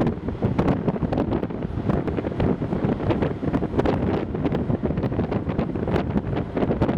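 Wind buffeting the microphone: an uneven rushing rumble with many short gusts.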